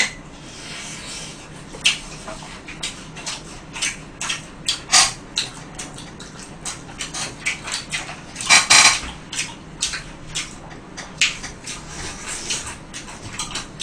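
Two people eating fried chicken close to the microphone: irregular bites, chewing and lip-smacking, with light clicks of chopsticks against the food and dishes. One longer, louder crunch comes a little past halfway.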